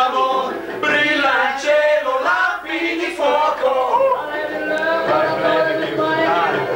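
A group of people singing together, with men's voices to the fore.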